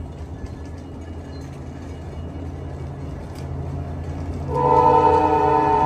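VIA Rail Siemens Venture passenger train rolling past at low speed with a steady low rumble, then its horn sounds a loud chord of several notes about four and a half seconds in and holds on.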